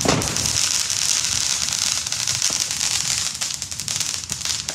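Fireworks: a bang right at the start, then a long dense run of crackling pops.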